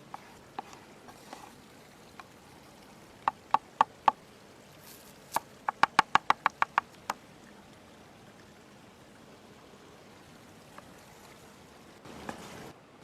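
Knife chopping on a wooden cutting board: four sharp knocks, then a quicker run of about ten. A short hiss follows near the end.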